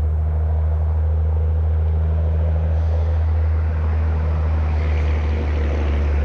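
Propeller airplane engine droning steadily, a low hum that grows brighter toward the end.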